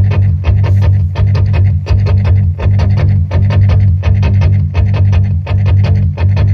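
Music with a heavy bass line and fast, rhythmic plucked guitar notes.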